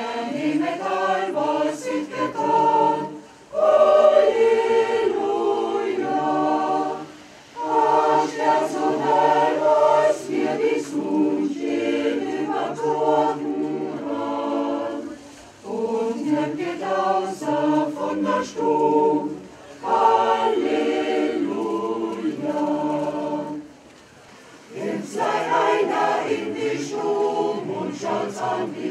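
Mixed choir singing unaccompanied, in long phrases with short breath pauses between them.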